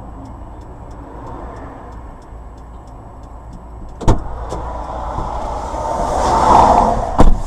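Vehicle engine running steadily, heard from inside a car, with faint regular ticking. A sharp knock about four seconds in, a swelling engine-like noise, then two loud thumps near the end.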